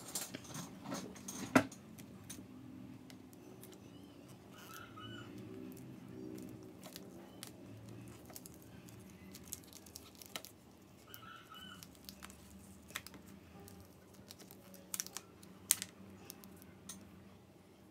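Scattered small clicks and taps of tools and plastic laptop parts being handled, with a sharp louder click about one and a half seconds in and a few more near the end, over a low steady hum.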